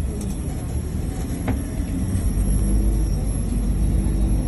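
Steady low rumble of airport apron noise around a parked airliner, growing louder a little over two seconds in, with a faint steady hum and a single click about a second and a half in.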